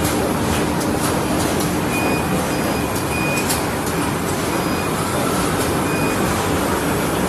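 Automatic bag-on-roll making machine for dog poop and garbage bags running steadily: a continuous mechanical clatter and hiss with light irregular clicks.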